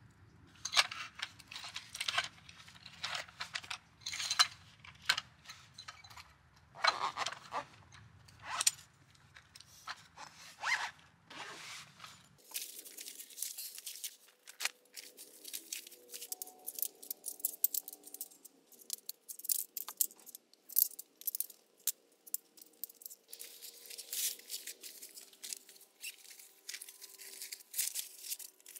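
Camping gear being handled and packed up: irregular rustling, scraping and crinkling, then a long run of short, sharp crackles and clicks.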